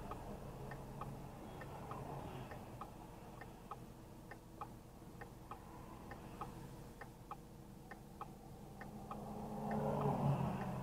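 A car's turn-signal indicator clicking steadily, about two to three clicks a second, over a low steady engine hum heard inside the stopped car. Near the end a swell of road noise rises.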